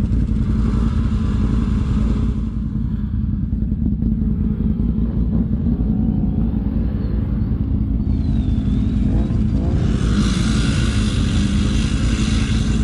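ATV engine running steadily with a low drone. A hissing rush higher up drops away about two and a half seconds in and comes back strongly near the end.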